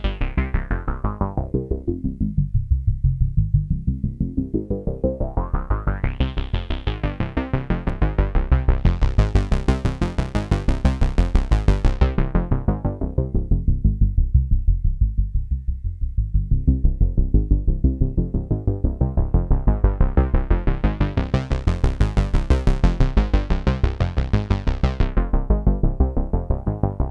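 Arturia MatrixBrute synthesizer playing a fast repeating note sequence through a TipTop Z2040 eurorack filter, a Prophet-5 rev 2 style filter. The filter cutoff is swept slowly down and up several times, so the sound goes from dull and muffled to bright and open and back, with a resonant peak audible on some sweeps.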